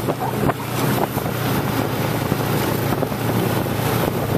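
Snowmobile engine running steadily at speed, a continuous drone, with wind buffeting the microphone as the sled travels along the trail.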